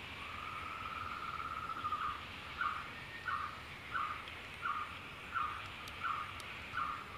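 An animal calling: one trilled note lasting nearly two seconds, then a regular series of short notes at the same pitch, about one and a half a second, over a steady high hiss.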